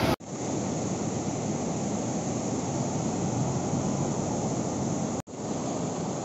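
Steady noise of heavy surf breaking on the beach, with wind. It cuts out for an instant twice, just after the start and about five seconds in.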